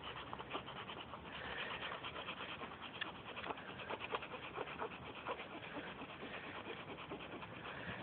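Sandpaper scraping over the rubber around a tyre puncture in many quick strokes, cleaning and roughening the spot before a patch is glued on.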